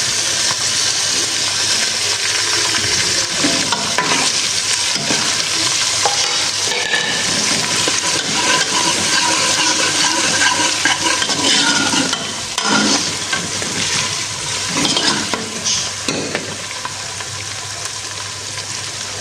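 Onion, garlic and ginger paste sizzling as it fries in oil, stirred in the pan with repeated scrapes, a little quieter in the second half.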